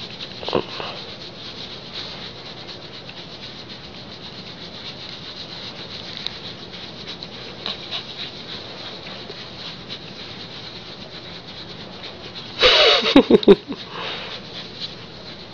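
Hands rubbing a husky's fur close to the microphone during a belly rub, a steady rustling scrub. The dog makes a short vocal sound about half a second in and a louder burst of vocalising about 13 seconds in.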